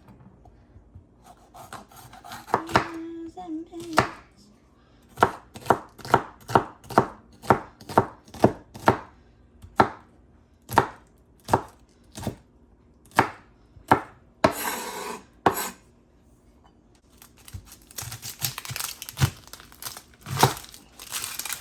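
A kitchen knife dicing vegetables: a run of sharp chopping strikes, about one to two a second, then a busier stretch of quicker cutting near the end.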